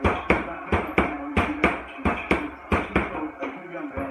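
Boxing gloves punching a hanging Everlast heavy bag in a fast series of sharp thuds, about three a second, a little lighter near the end.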